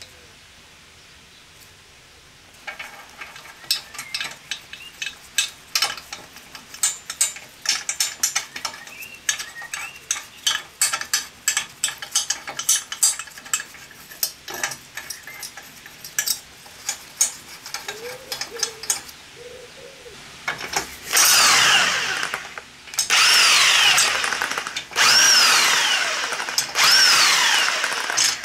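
Metal clinks and taps as cylinder head bolts are set into the head of a Briggs & Stratton engine, then a cordless drill runs the head bolts down in about four short bursts, its motor pitch falling away each time the trigger is released.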